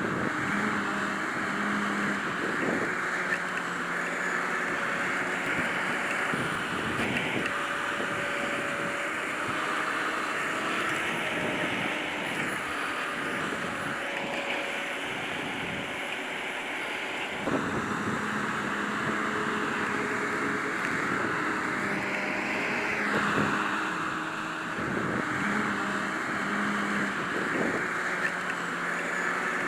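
Grimme Varitron 270 potato harvester running as it lifts potatoes: a steady engine hum over a continuous clattering of machinery, shifting in tone a few times.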